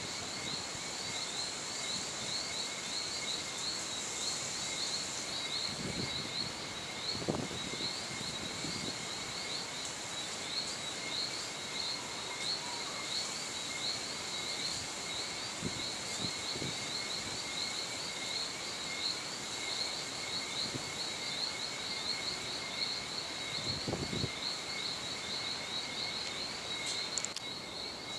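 Evening chorus of insects: steady high chirring at several pitches, one of them a fast, pulsing trill. A few soft, low thuds come through now and then.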